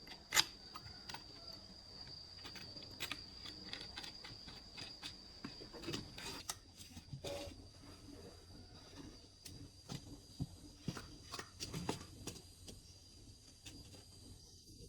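Scattered light clicks, taps and knocks of hand work, with one sharper knock about half a second in, over a faint steady high-pitched whine. No saw or planer is running.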